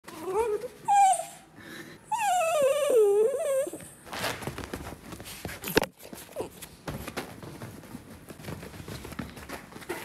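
Italian Greyhound vocalizing: short whining calls in the first second, then a longer wavering whine-moan about two seconds in that slides down in pitch. After that comes rustling and shuffling as the dog moves on the cushion, with a sharp click near six seconds.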